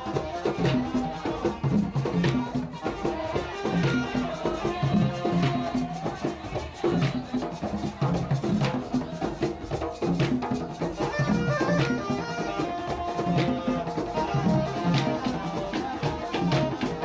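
Live ensemble of djembe-type hand drums played together in a fast, steady dance rhythm, with hand claps and shaker-like rattling over the beat.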